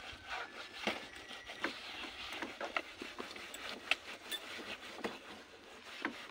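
Scattered light clicks, knocks and rustles of hands working around a car's dashboard and driver's footwell during interior cleaning.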